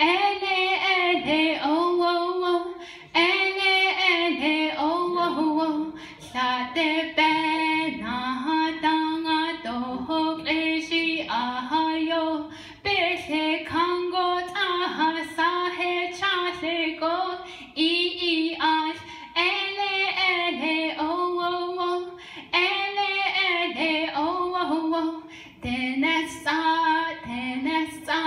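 A young woman singing solo into a microphone, in phrases of a few seconds with short breaks between them.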